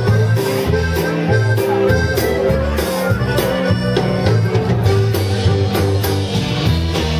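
Old-school Tejano dance music playing, with a steady beat and a bass line that alternates between low notes.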